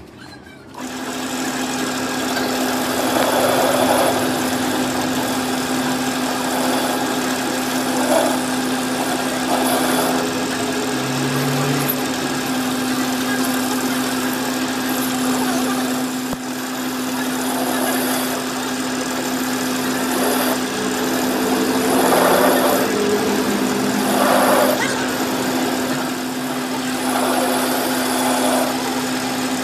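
A machine starts running about a second in and keeps going with a steady hum, with short swells of louder noise now and then.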